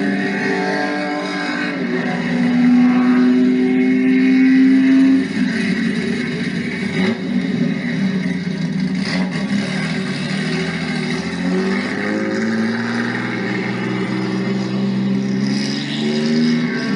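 Turismo Carretera race car engine running and revving. It is held at a steady pitch for a few seconds, drops off suddenly about five seconds in, then rises and falls with slow upward sweeps near the end.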